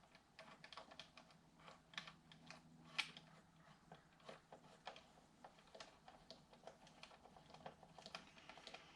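Faint, irregular small clicks and taps of hand tools and small metal and plastic parts being handled while the RC truck's steering is reassembled, with one slightly louder click about three seconds in.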